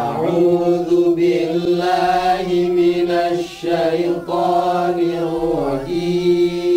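A man's voice chanting a Quran-recitation melody in maqam nahawand, holding long notes that step up and down in pitch. There is a brief pause for breath about halfway through and another near the end.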